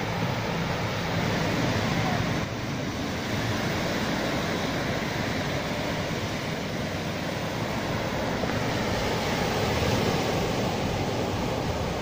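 Small sea waves breaking and washing up over a sandy beach: a steady rush of surf that swells a little near the end.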